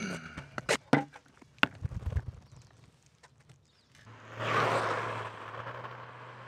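A few sharp knocks and clicks, then a Onewheel Pint electric board rolling past on asphalt about four seconds in: tyre and hub-motor noise with a steady low hum swells and slowly fades away.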